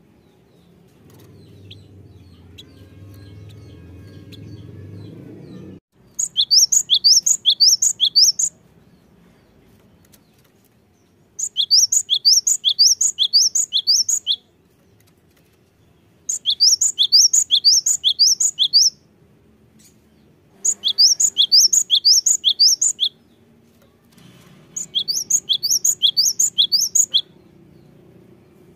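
Cinereous tit (gelatik batu) singing five bouts of its song. Each bout is a quick run of about ten high two-note phrases, roughly four a second, with short pauses between bouts. A low hum in the first seconds cuts off suddenly just before the first bout.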